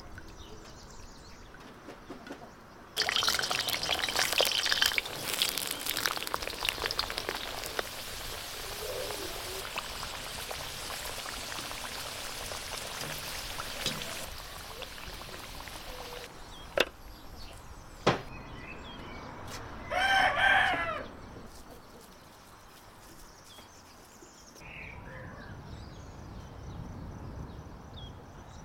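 Sunflower oil trickling into a cast-iron wok. About three seconds in, potato slices drop into the hot oil with a sudden loud sizzle and crackle, which settles into a steady frying hiss. Later come two sharp knocks and a short, loud pitched call.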